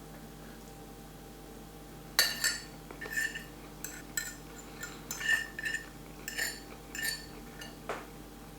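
Cutlery clinking against a dish while eating spaghetti: about a dozen short, light, ringing clinks at an uneven pace, starting about two seconds in.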